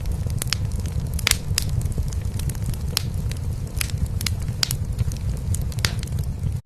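Wood fire in a fireplace crackling, with frequent sharp pops, over a low continuous purr from a cat. The sound drops out for an instant near the end.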